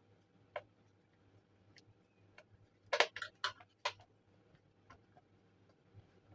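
Irregular small clicks and taps of hands working on a Bluetooth speaker's casing, with a quick run of sharper, louder clicks about three seconds in.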